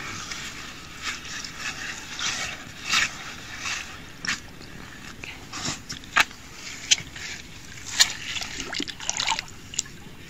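Water splashing and sloshing in short, irregular bursts as a freshly caught carp of about 6 kg is handled in the water and put back.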